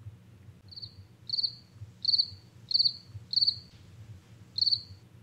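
Cricket chirping: six short trilled chirps, the first about a second in and the last after a longer gap, over a faint low hum.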